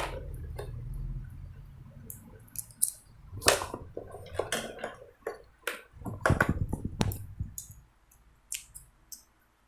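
Hands handling small plastic parts and batteries of a wireless keyboard and mouse: a string of irregular clicks, taps and plastic knocks, busiest from about 3 to 7.5 s, then only a few faint clicks.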